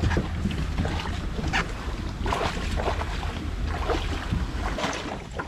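Johnboat coming in to a muddy shore: a steady low rumble with scattered knocks and splashes, the rumble fading out near the end.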